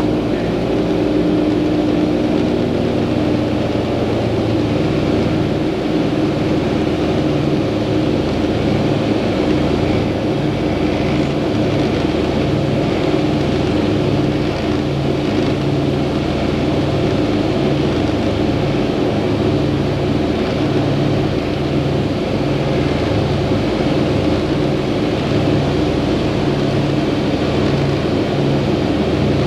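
Four Wright R-3350 radial engines and propellers of a Lockheed L-1049H Super Constellation running steadily in flight, heard inside the cabin as a loud, even drone with a slow throb in its low notes.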